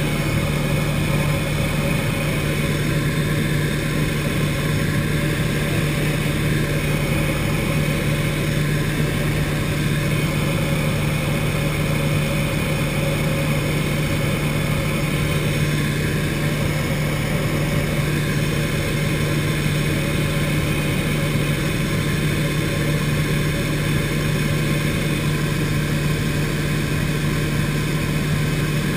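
Turner T-40 light aircraft's piston engine and propeller running steadily in flight, an even drone with a constant low tone, heard from inside the closed cockpit.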